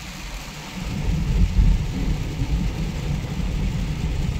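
Heavy rain hissing on a car's roof and windows, heard from inside the moving car over the low rumble of the engine and tyres on the wet road. It grows louder about a second in.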